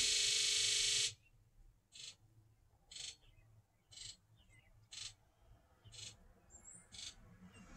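Ford 7.3 L Power Stroke diesel's injectors during the injector buzz test. The long buzz of all injectors firing together cuts off about a second in. Then single injector solenoids buzz briefly one after another in numerical order, about one a second, six times.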